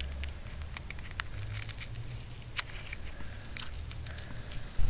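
Small scissors snipping the tips of a folded wrapping-paper heart to round them off: a handful of short, sharp snips at uneven intervals, with light paper rustling between them.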